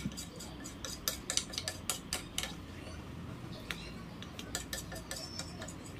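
Metal ladle stirring chicken curry in a pressure cooker, clinking and scraping against the pot's sides: irregular light clicks, several a second.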